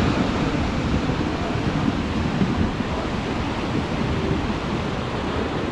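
Steady rushing wind buffeting the microphone, strongest and most gusty in the low end.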